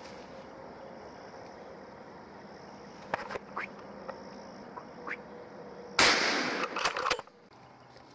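A single loud gunshot about six seconds in, its report dying away over about a second, over a steady high drone of insects. A few faint clicks come before it.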